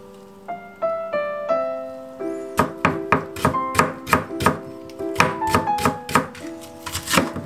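Kitchen knife chopping on a wooden cutting board, a quick run of sharp knocks about three a second starting a couple of seconds in, over soft background piano music.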